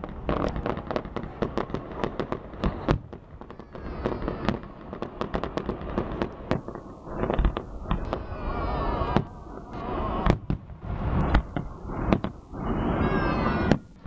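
A fireworks salute bursting overhead: a dense run of sharp bangs and crackles, several a second, thickest in the first few seconds and continuing with further bursts to the end.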